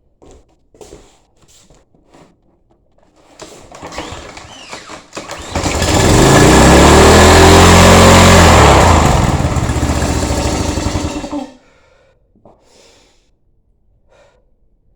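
A small gasoline engine on a pressure washer, just after a valve job on its head, starts after a few seconds of rising cranking noise. It runs loudly with a wavering speed for about six seconds, then weakens and cuts off suddenly. A few light knocks come before and after it.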